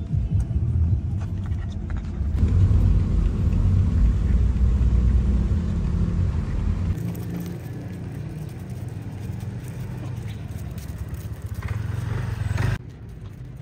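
Road noise inside a moving car's cabin: a steady low rumble that shifts level a couple of times and drops away sharply near the end.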